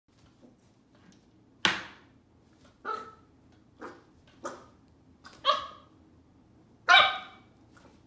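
Corgi puppy barking at a spring door stopper: six short, sharp barks about a second apart, the last the loudest.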